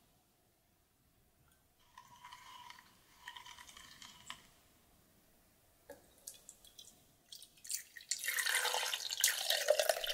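Liquid being poured: thick cream poured softly into a blended milk mixture, then the mixture poured in a stream into the metal bowl of an ice cream maker, splashing and louder over the last two seconds.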